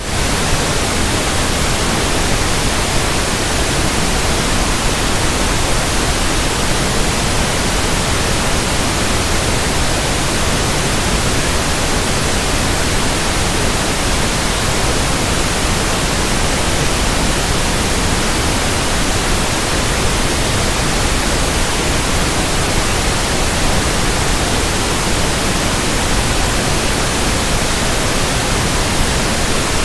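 Pink noise test signal: a steady, even hiss across the whole frequency range, used for running in new loudspeakers and headphones.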